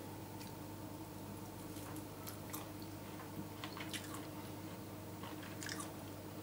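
A person chewing a bite of roast lamb: faint, scattered wet mouth clicks and smacks over a steady low hum.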